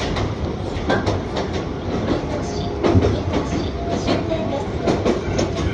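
Inside a running former Tokyu electric train car: a steady rumble of wheels on rail, with irregular clicks and clatter from the wheels and the car body.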